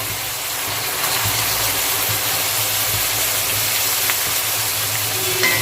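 Chopped onions deep-frying in oil and ghee, a steady sizzle over a low hum, as they reach golden brown.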